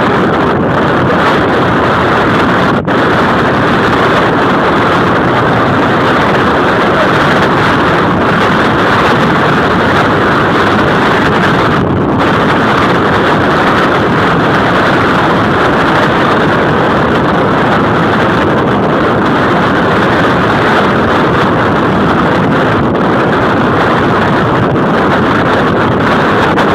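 Loud, steady rushing of wind or air, an even noise that runs without a break except for two momentary dips, about three and twelve seconds in.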